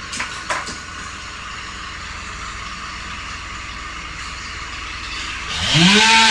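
Steady machinery noise with a few sharp knocks in the first second. About five and a half seconds in, a chainsaw revs up quickly to full throttle and keeps running loud as cutting starts.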